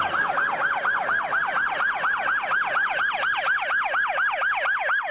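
Electronic police siren in a fast yelp: a tone sweeping down in pitch over and over, about five times a second.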